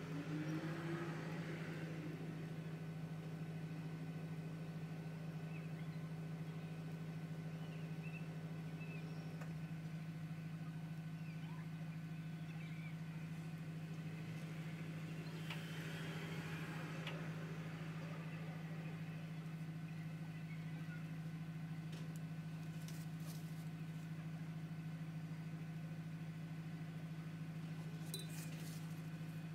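Steady low hum in the room, with faint soft strokes of a watercolour brush on paper now and then and a few small clicks near the end.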